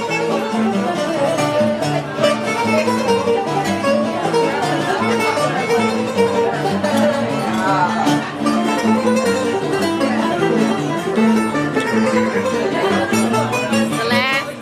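Music with plucked strings, notes changing in a steady rhythm.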